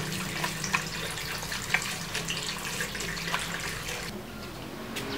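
Water running and splashing, with many small splashes, as hands scrub soap lather over a face.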